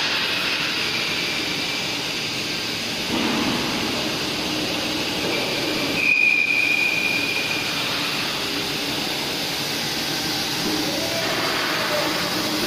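Tank polishing machine running, its polishing wheel grinding against the inside of a large stainless steel tank: a steady metallic rushing noise, with a high squeal rising out of it about five seconds in and lasting a couple of seconds.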